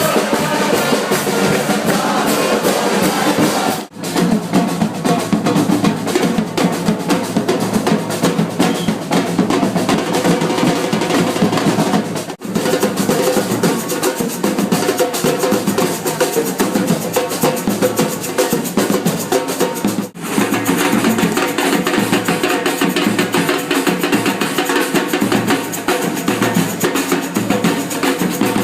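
Drum-led music with a steady beat of snare and bass drum and snare rolls. It drops out briefly three times.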